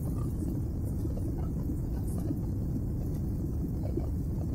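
Steady low rumble of a Boeing 767's engines and rushing air, heard inside the passenger cabin as the airliner climbs after takeoff.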